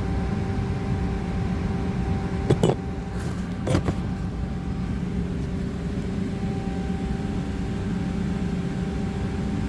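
Press brake running with a steady, pitched machine hum. Two short knocks come through it, about two and a half and nearly four seconds in, as the tooling is handled.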